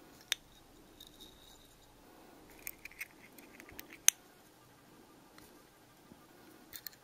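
Small sharp clicks and taps of a replica Slytherin locket being handled, fingers working at it to see whether it opens. There is a quick cluster of clicks about two and a half seconds in and the loudest single click about four seconds in.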